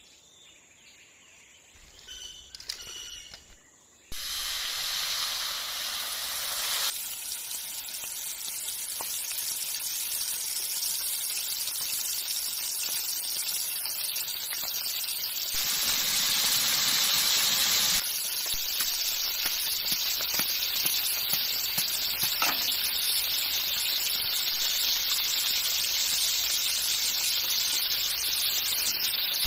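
Turmeric-coated fish pieces deep-frying in hot oil in a black wok over a wood fire: a loud, steady sizzle that starts suddenly about four seconds in.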